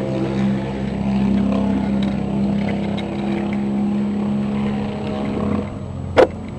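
A quad's engine running at a steady speed, dropping off about five and a half seconds in. Near the end come two sharp knocks about half a second apart.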